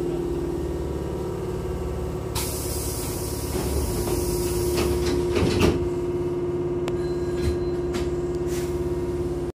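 Hankyu train's sliding passenger doors closing: a hiss of air from the door engine starts about two and a half seconds in, then the doors slide shut and meet with a thud a little after five seconds, with a few lighter clicks afterwards. A steady hum runs underneath.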